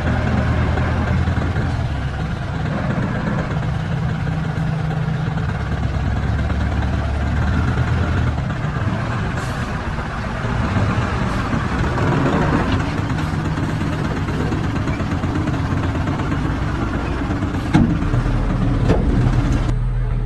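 Heavy diesel engine of construction machinery running steadily, its pitch shifting a little with load, with a couple of sharp knocks near the end.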